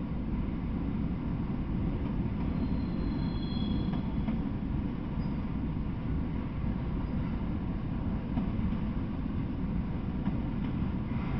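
Freight train of autorack cars rolling past, a steady low rumble of wheels on rail. A brief faint high squeal comes about three seconds in.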